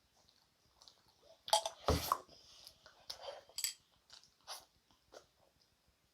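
Close-up chewing of soft gummy jelly: wet, sticky mouth clicks and squelches, in a cluster about a second and a half in, another near the middle, then fainter toward the end.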